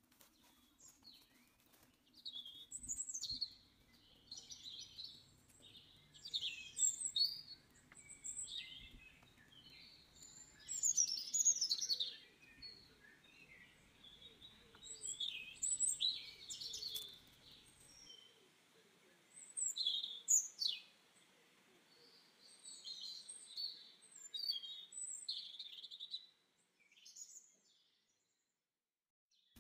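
Forest birds chirping and calling, many short high calls and trills overlapping in quick succession, stopping abruptly about two seconds before the end.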